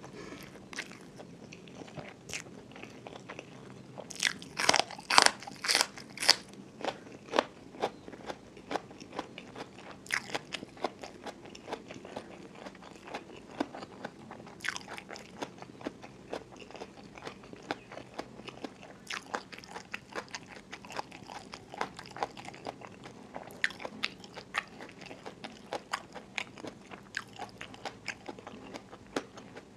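Close-miked crunching and chewing of raw, crisp small bitter gourd (bitter melon). A run of loud crunching bites comes about four to six seconds in, followed by steady smaller crunches and mouth clicks as it is chewed.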